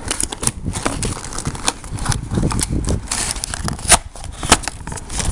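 Cardboard toy box and its clear plastic dart tray being handled: irregular clicks, knocks and crinkling, with two sharp knocks about four seconds in.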